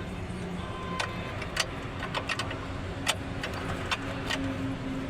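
Maruti Suzuki WagonR K-series engine running with a steady hum whose pitch steps up about two seconds in, with a few scattered clicks. The engine is misfiring badly, with one cylinder not working.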